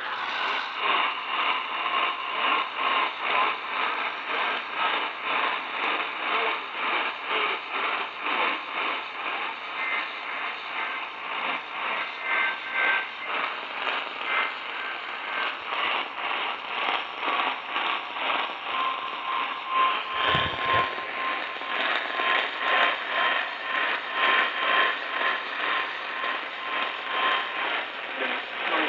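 AM radio receiver tuned to a distant station, giving hiss and crackling static with a fast, steady pulsing interference and no clear programme audio: weak long-distance reception.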